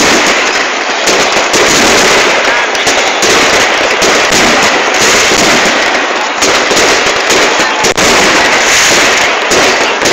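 Aerial fireworks bursting and crackling in a dense, unbroken barrage, very loud.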